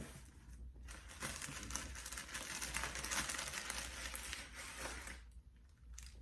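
Wrapping paper being unfolded and handled, crinkling and rustling steadily, then dying down about five seconds in.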